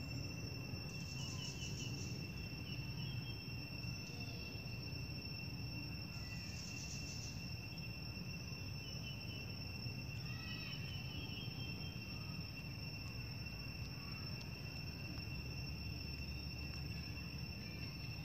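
Steady high-pitched insect drone holding two constant tones, with a couple of brief louder bursts of higher chirring and a few short chirps over a low rumble.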